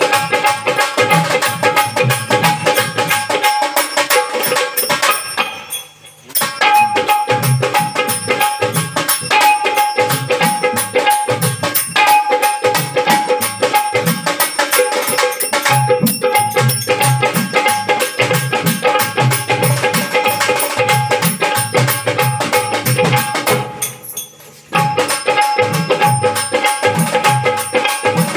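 Marathi folk devotional music in lavani style: a melody over a held drone, driven by a steady beat on hand drums with jingling percussion. The music drops out briefly twice, around six seconds in and again near the end.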